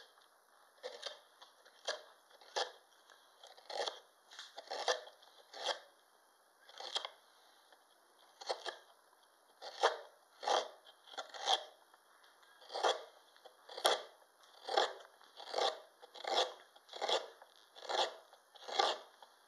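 Stubai bent gouge taking small shavings out of the bowl of a wooden spoon blank, cutting across the grain. Short cuts come in quick succession, with a few pauses in the first half, then nearly two a second.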